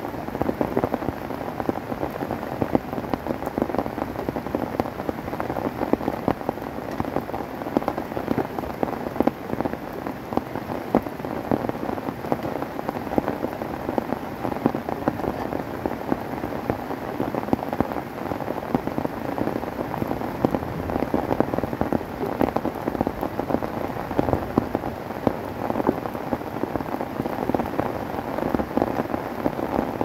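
Heavy rain falling steadily: a dense, even pattering of drops.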